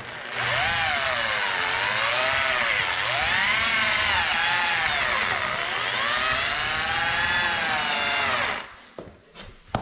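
Electric drill driving a paddle mixer through thinset mortar in a plastic bucket, its motor whine rising and falling in pitch as it mixes. The motor stops about a second before the end, followed by a single click.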